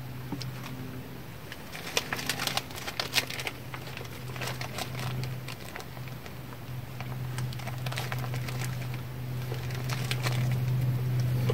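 Plastic food wrapping crinkling in two bouts of handling as a block of cheese is unwrapped and held, over a steady low hum.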